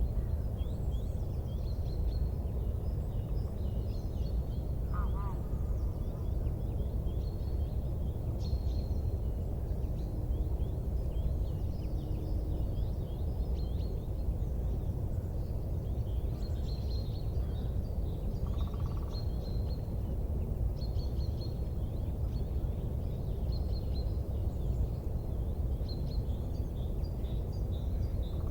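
Small birds chirping in short repeated calls over a steady low rumbling noise; no sharp crackles or pops stand out.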